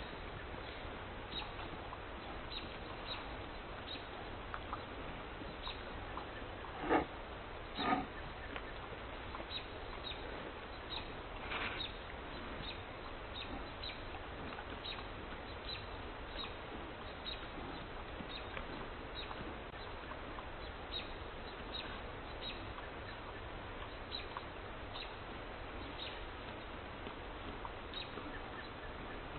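A pig gives two short calls, about seven and eight seconds in, over a steady background hiss with faint scattered ticks.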